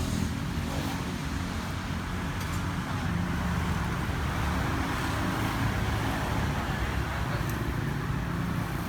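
Steady road traffic: engines of passing vehicles making a continuous low rumble.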